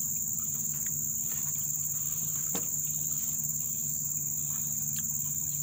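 Insects chirring in a steady, continuous high-pitched drone, with a couple of faint clicks.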